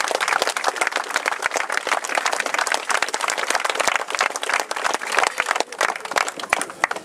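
Crowd applauding: dense clapping that thins out after about five seconds and stops at about seven seconds.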